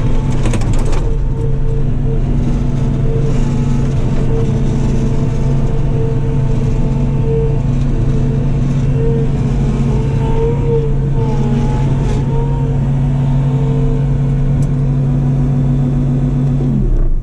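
Bobcat T66 compact track loader's diesel engine running at a steady speed, heard from inside the cab. Near the end it winds down and stops as the engine is shut off.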